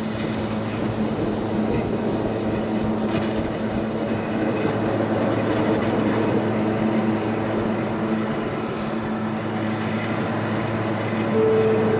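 Electric train of the Bernese Oberland Railway running along the track: a steady rumble with a low electrical hum, a few faint clicks, and a brief higher tone near the end.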